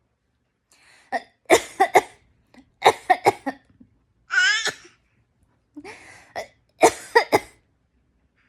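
A nine-month-old baby making imitation coughs, mimicking its mother's cough: three quick runs of two or three short coughs, with one brief high-pitched vocal squeal between them near the middle.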